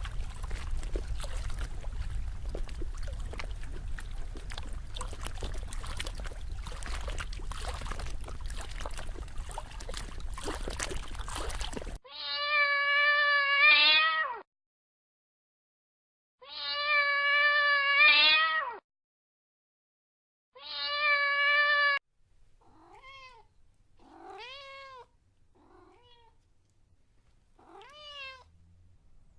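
A harsh, crackly rumbling noise that cuts off abruptly about 12 seconds in. Then a domestic cat meows: three loud, long, drawn-out meows, then several fainter, shorter ones.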